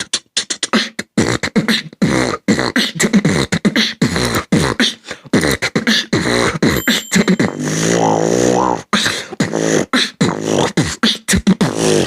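Human beatboxing: rapid mouth-made kick, snare and hi-hat strokes in a dense rhythm, with a held, wavering vocal tone about two-thirds of the way through.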